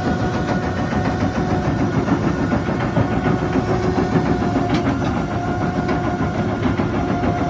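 Hitachi Zaxis 330 excavator running under load with a crusher bucket on the arm: a steady engine and hydraulic whine with a constant busy clatter of knocks as the bucket works rock.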